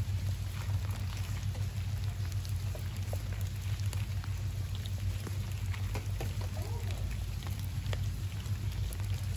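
Cats crunching dry kibble from plastic tubs: scattered small clicks over a steady low rumble, with a brief faint wavering call about seven seconds in.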